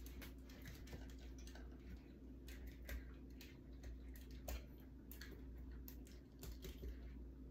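Faint, irregular clicks and taps of a small spatula knocking against glass canning jars as it is worked down through packed potatoes to release trapped air bubbles. A low steady hum sits underneath.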